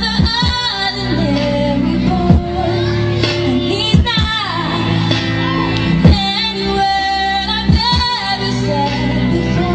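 Pop song sung live by a young female singer over backing music.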